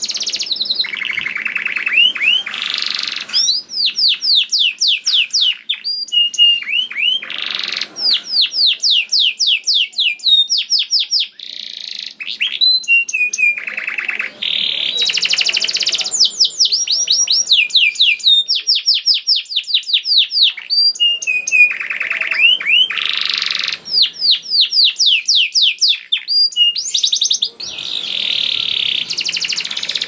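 Domestic canary singing a long song of fast trills and runs of quickly repeated sweeping notes, high-pitched, with only a few brief pauses.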